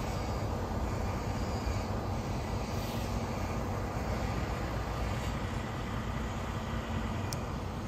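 Steady low rumble of idling vehicle engines, with a faint constant hum.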